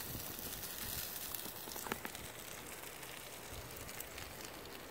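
Faint, steady sizzling of chicken cooking on a gas grill, with a single short click about two seconds in.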